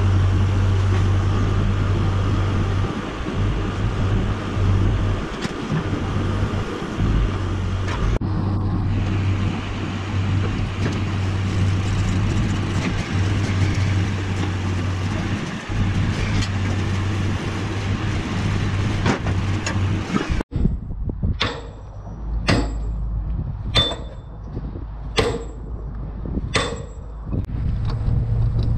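Diesel engine of a John Deere 310K backhoe loader running steadily. About two-thirds of the way through it cuts off and a regular series of sharp clanks follows, roughly one every second and a half, as track workers strike and lever a rail with steel bars.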